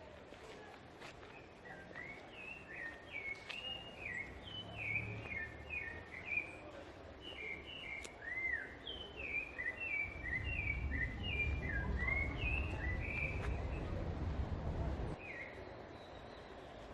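Small birds chirping in many quick, short notes, faint against outdoor background noise. A low rumble comes up about ten seconds in and cuts off suddenly about five seconds later.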